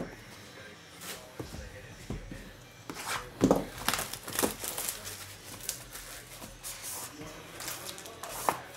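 Sports-card packaging being handled and opened: plastic wrapper crinkling and tearing, with short taps and clicks in a series of brief bursts, busiest from about three seconds in.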